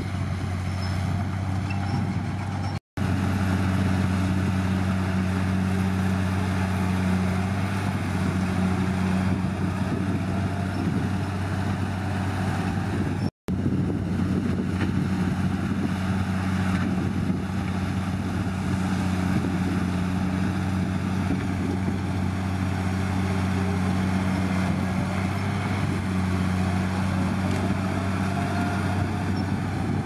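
Komatsu D53P bulldozer's diesel engine running steadily under work, a constant low hum. The sound cuts out for an instant twice, about three and thirteen seconds in.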